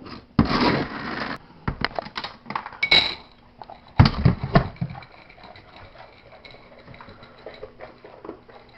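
Dry dog food rattling into a bowl with clinks and clatter, and a loud knock about four seconds in as the bowl is set down. After that comes a run of light ticks and crunches as the dog starts eating the kibble from the bowl.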